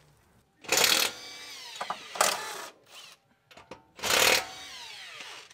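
Impact wrench hammering in three short bursts, each trailing off in a falling whine as the motor spins down, used on the front suspension of a car being stripped for a coilover install.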